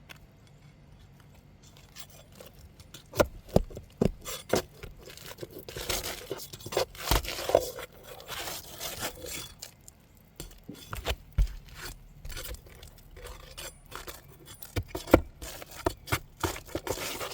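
Metal pry tool scraping and knocking under asphalt roof shingles as a nail is levered out, in irregular sharp clicks and knocks. A longer stretch of scraping and tearing a few seconds in, as the sealed shingle is worked loose.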